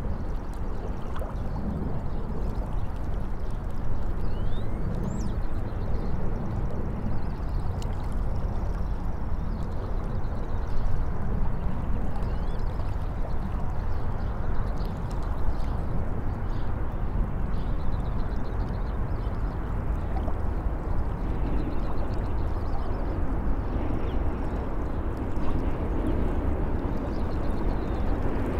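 River water lapping and gurgling against a rocky shoreline over a steady low rumble of city traffic. Small birds chirp faintly now and then.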